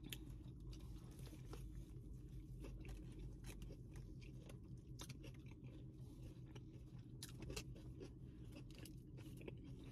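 Faint close-up chewing of a turkey provolone sub sandwich with shredded lettuce: soft irregular crunches and mouth clicks over a low steady hum.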